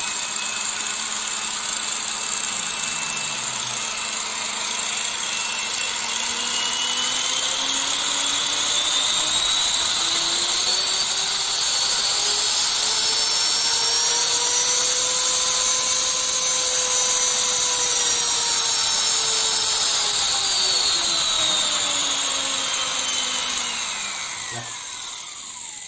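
Angle grinder motor running without load, its speed set by an AC dimmer. The whine climbs slowly to a peak a little past halfway, then sinks again and drops steeply as the motor winds down near the end.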